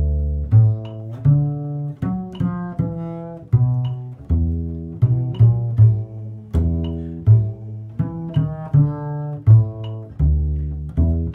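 Upright double bass plucked pizzicato, playing a two-feel line of mostly long half notes, each note ringing on until the next is plucked. A faint regular click keeps time underneath.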